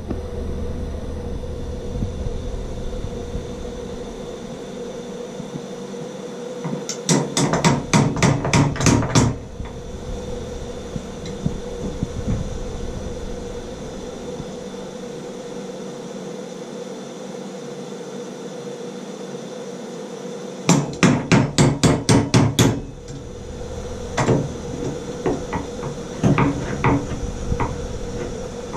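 Hammer blows in two quick runs of about eight strikes each, some three to four a second, a third of the way in and again past two-thirds, followed by a few scattered lighter knocks near the end.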